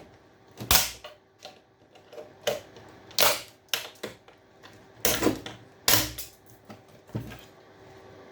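Irregular sharp knocks and clacks, about seven loud ones spread roughly a second apart, as a part of a scrapped electrical appliance is forced and pushed out of its housing.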